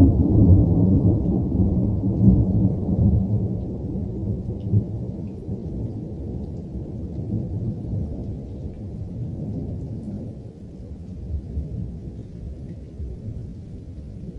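A deep, thunder-like rumble with no clear pitch, loudest at first and slowly dying away.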